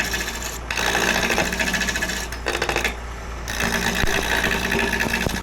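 Roughing gouge cutting into spinning lignum vitae on a wood lathe, a steady scraping shear over the hum of the lathe. The cut stops briefly twice, near the first second and for about a second midway, as the gouge is lifted off the wood.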